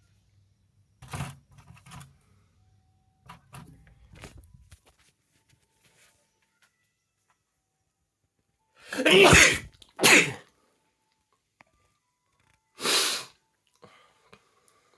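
A person sneezing: a loud sneeze about nine seconds in, followed a second later by a shorter second sneeze, and another sneeze about thirteen seconds in. Quieter short sounds come in the first few seconds.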